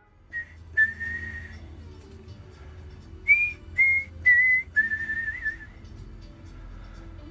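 A person whistling a slow tune, held notes with small slides in pitch, with a few light clicks from work in the background.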